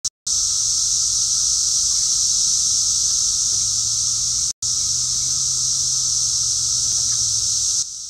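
Dense chorus of Brood V 17-year periodical cicadas: a loud, steady, high-pitched hissing drone with a fainter lower hum beneath it. It cuts out briefly about halfway through and drops in level just before the end.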